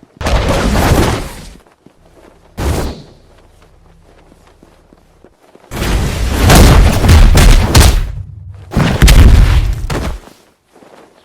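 A series of loud, rough booming bursts: a burst of about a second and a half, a short one, then two longer stretches, with a faint low hum in the lull between them.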